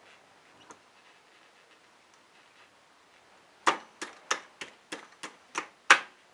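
A run of about nine sharp, evenly spaced taps, roughly three a second, starting a little past halfway: the through-axle being tapped and worked into the front fork dropouts.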